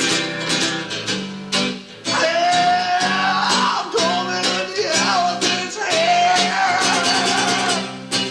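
The song's 'rock part': a hard-strummed guitar in a steady rhythm, with long held, wavering melody notes above it. The music dies away right at the end.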